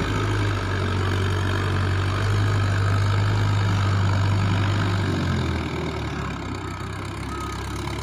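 Mahindra Yuvo 575 tractor's four-cylinder diesel engine running steadily as it drives through a flooded paddy field pulling a tillage implement; its note drops a little about five seconds in.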